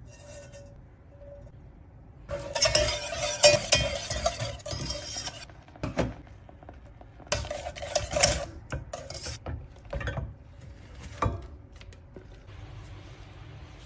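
Spoon and spatula clinking and scraping against a saucepan while a mixture is stirred: two longer stretches of scraping, with single sharp clinks between them.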